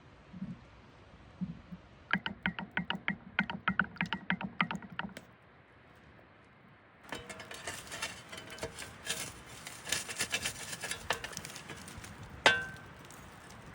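Cookware being handled over a campfire: a quick run of clicking strokes, then a stretch of crackling, ending with one sharp metallic clink that rings briefly.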